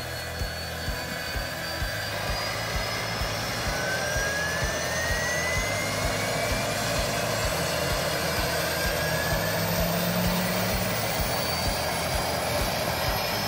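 Lancair Evolution's PT6 turboprop engine running on the ground: a steady turbine rush over rapid low propeller pulsing, with a thin whine that rises slowly in pitch as the sound grows a little louder.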